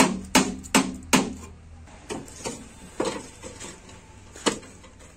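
A steel chisel is driven into the thin tin-plate side of a square cooking-oil tin, cutting it open against a brick braced inside. Each blow is a sharp metallic knock with a short ring. There are four quick loud strikes in the first second or so, then several lighter ones, and one more loud strike near the end.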